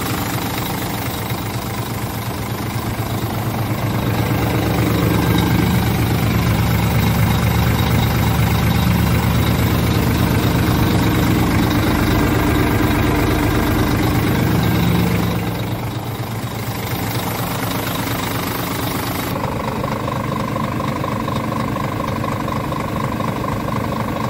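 Scania R 410 Euro 6 truck's straight-six diesel idling steadily. It is louder from about four seconds in until about fifteen seconds, then drops back.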